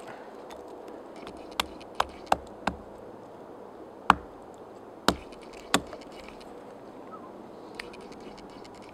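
Small hatchet chopping into a chaga fungus growth on a birch trunk: four quick, light strikes about a second and a half in, then three harder, sharper blows between about four and six seconds.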